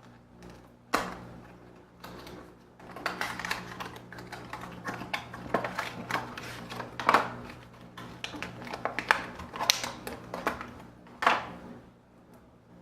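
Retail packaging being opened and handled by hand to take out a USB cable: a dense run of sharp clicks and crinkles, with a few louder snaps, fading out near the end.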